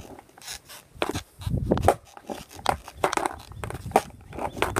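Sneakers scuffing and sliding on a skateboard's grip tape while the board shifts on asphalt, giving short, irregular scrapes and knocks.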